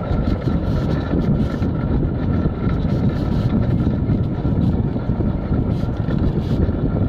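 Steady rumble and gravel crunch of a wheeled rig rolling along a gravel trail behind a running team of sled dogs, with wind on the microphone.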